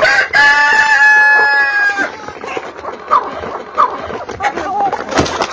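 A rooster crows once, one long held call of about two seconds, followed by a few short clucks from chickens.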